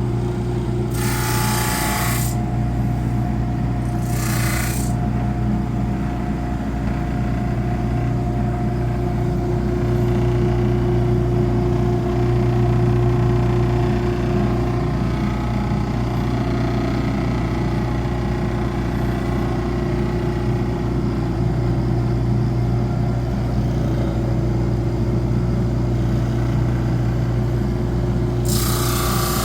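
Electric power tool motor running steadily with a constant hum, broken three times by short bursts of hissing noise, near the start and again near the end.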